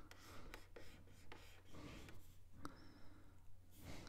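Faint scratching of a stylus drawing quick short strokes on a graphics tablet, several strokes in an uneven rhythm.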